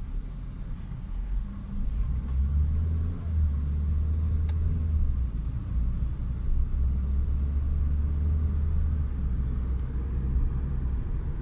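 Chevrolet Sonic being driven, a steady low engine and road rumble heard from inside the car, with one short click about halfway through. The engine has an intermittent misfire on cylinder 3, worst between 1500 and 3000 rpm, which the mechanic puts down to a faulty coil pack.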